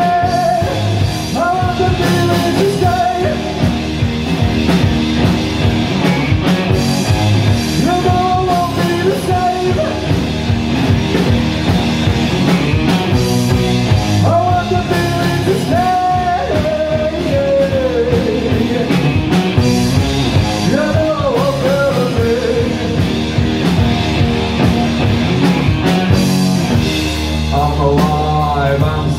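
Live rock band playing loudly: electric guitar and drum kit driving the song, with a sung vocal line over them.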